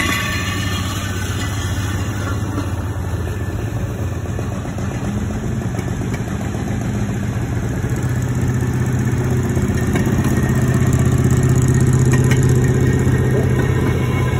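Railroad speeders (track motorcars) running along the rails, their small engines humming steadily; the engine grows louder in the second half as the next speeder draws close and passes.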